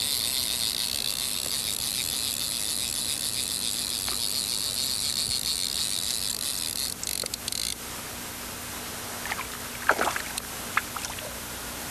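A fly reel's click-and-pawl drag buzzing steadily as a hooked fish runs upstream and pulls line off the reel. The buzz cuts off about two-thirds of the way through, leaving a few faint clicks.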